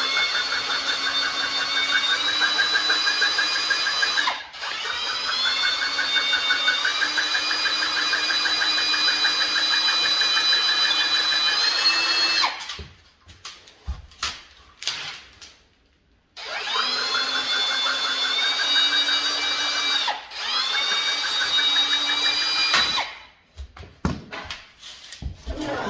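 A cordless drill drives a Malco Turbo Shear attachment through sheet metal, giving a steady high motor whine with a chattering cut. Its pitch steps up a few times as the drill comes up to speed. It runs in two long stretches that stop about halfway through and again near the end, and the gaps are filled with knocks and clatter from the metal sheet being handled.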